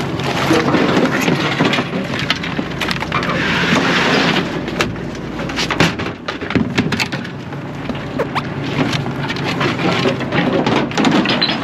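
Hairy crabs' hard shells knocking and clattering as they are sorted by hand in a steel tray and handled into plastic baskets, many sharp clicks over a steady wash of noise.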